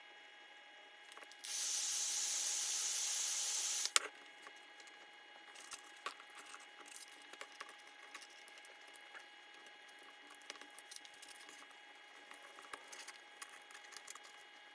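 A steady hiss for about two and a half seconds, starting and stopping abruptly and ending with a sharp click. Faint light clicks and scrapes of small tools follow.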